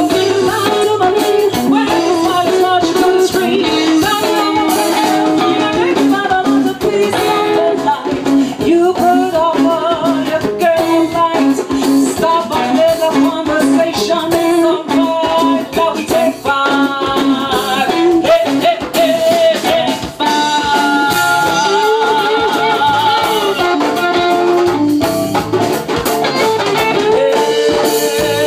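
Live band playing a song: guitars, drum kit and djembe, with a singer's voice over them.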